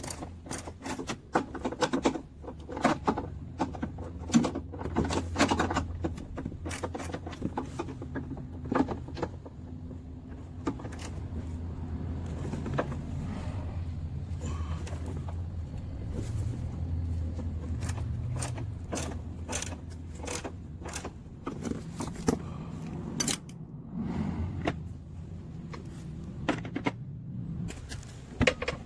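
Metal hand tools and car parts clinking and knocking in irregular sharp strikes, with a little metallic jingling, over a steady low hum.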